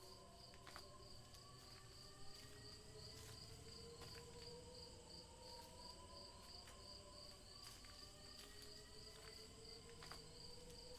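Faint night ambience of crickets chirping in a steady, even pulse, over slow low tones that glide up and down, with a few faint clicks.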